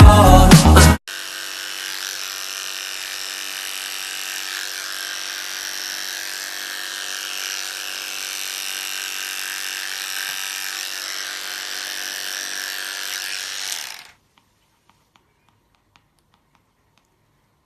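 Pop music cuts off about a second in, and a small electric motor begins a steady, even whine. It stops abruptly about fourteen seconds in, leaving near silence with a few faint ticks.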